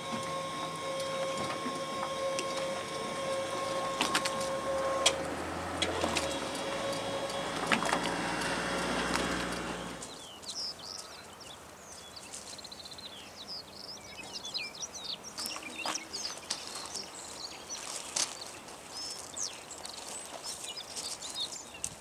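Machinery on a small kelp-fishing boat running with a steady hum and tone, with a few knocks. About ten seconds in it cuts to birds chirping over a quiet outdoor background.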